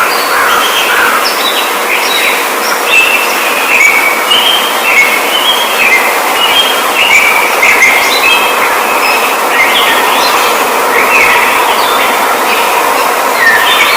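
A flock of birds chirping continuously, many short overlapping high calls over a steady hiss.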